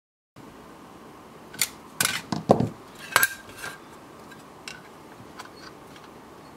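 Sharp clicks and clacks of a circuit board and the metal chassis of a thin client being handled, a quick burst of them about two seconds in, then a few single ticks.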